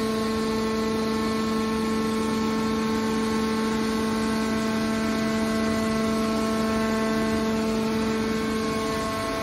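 Scrap metal baler's hydraulic power unit, an electric motor driving the hydraulic pump, running under load with a steady pitched hum while the lid cylinder swings the baler lid closed.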